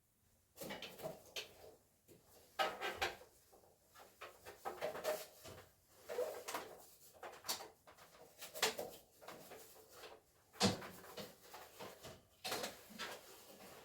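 Network cables being handled and plugged in at a rack patch panel: irregular clicks, taps and rustling from connectors and cable being worked by hand.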